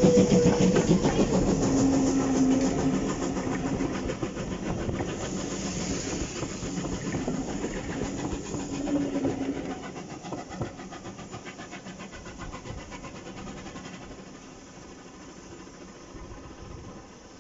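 Steam locomotive hauling a passenger train passes close by and pulls away, its exhaust and the carriage wheels on the rails loud at first, then fading steadily into the distance.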